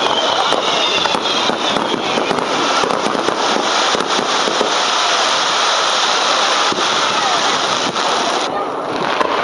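Aerial fireworks bursting overhead: a continuous dense crackle of many sharp pops from the spark-filled shells, keeping up without a break and thinning briefly near the end.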